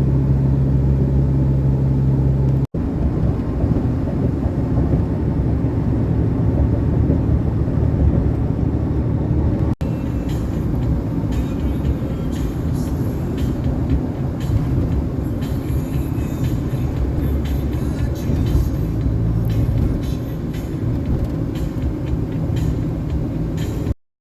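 Vehicle engine and road noise while driving, a steady low rumble heard in several short clips spliced together with abrupt cuts.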